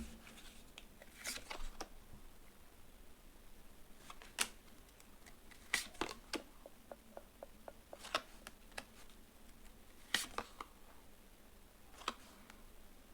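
Tarot cards being handled and laid down: scattered light clicks and taps, with a quick run of small ticks midway.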